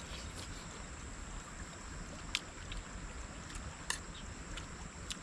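Outdoor wind noise rumbling low on the microphone, with a thin steady high-pitched tone, broken twice by sharp clicks of metal spoons against plates.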